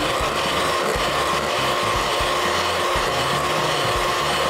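Electric hand mixer running steadily at an even pitch, its twin beaters whipping egg whites in a glass bowl. The whites are at the soft-peak stage and are being beaten on toward stiff peaks.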